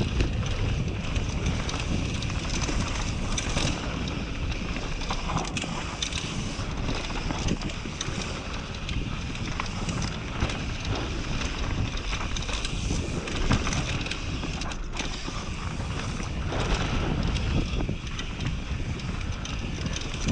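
Enduro mountain bike descending a dry dirt singletrack at speed: the tyres roll over dirt and loose stones, the bike rattles with many small knocks over bumps, and wind buffets the microphone throughout.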